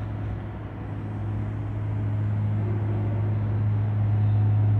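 A steady low hum, slowly growing louder.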